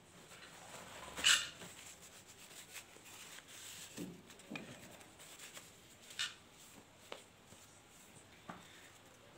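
Faint handling noises: a short sharp rustle about a second in, then a few scattered light clicks.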